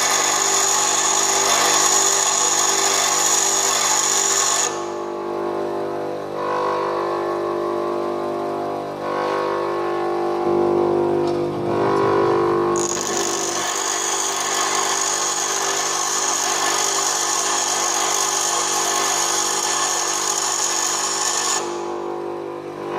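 Bench grinder running, with an HSS lathe tool bit held against the grinding wheel, giving a steady high hiss of grinding. The grinding stops about five seconds in while the motor runs on alone. It starts again around the middle and stops shortly before the end.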